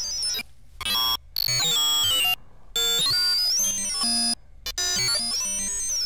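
Sci-fi computer sound effect: a sine wave from Logic Pro's ES2 synthesizer crushed by a bit crusher into a mass of odd, stepped digital tones. A thin high tone glides up and down over the glitchy chatter, and the sound cuts out abruptly several times for short gaps.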